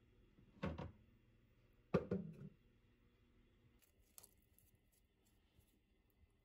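Faint handling noises while ingredients go into a soup pot: two short muffled knocks about a second and a half apart near the start, then a light click about four seconds in, over a faint steady hum.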